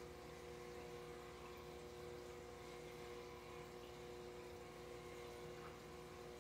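Aquarium air pump and bubbler running, a faint steady hum with a low wash of bubbling.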